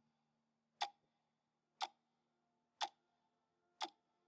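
Steady clock-like ticking: four sharp ticks, one each second, over a faint steady hum.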